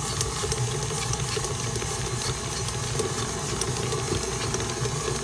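Electric tilt-head stand mixer running steadily with a low motor hum, its flat beater turning a thick creamed shortening and sugar mixture in a stainless steel bowl.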